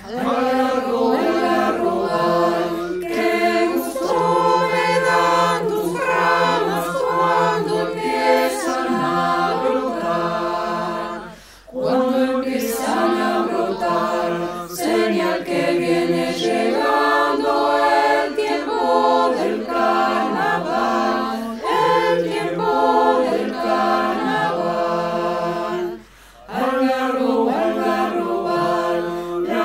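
Mixed choir of men's and women's voices singing a traditional Argentine vidala a cappella, in several parts. Two brief pauses between phrases, about 12 and 26 seconds in.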